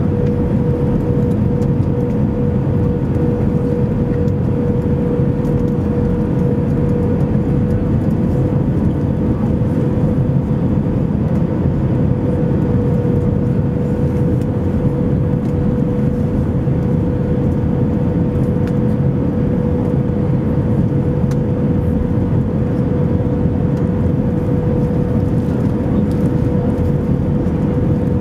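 Steady cabin noise inside an Airbus A319 in flight on approach: a constant roar of engines and airflow, with a steady mid-pitched whine running through it.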